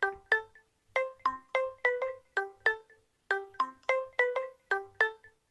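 UMX phone ringtone playing: a quick melody of short, decaying notes, about three or four a second, the same phrase looping roughly every two seconds with a brief pause between repeats.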